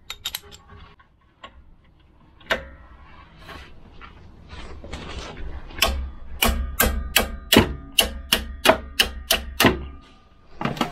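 Hammer striking metal at a rear brake caliper, hitting the tool on a tight caliper bolt to break it loose. A single knock comes first, then from about halfway through a quick run of about a dozen sharp, ringing metallic blows, roughly three a second.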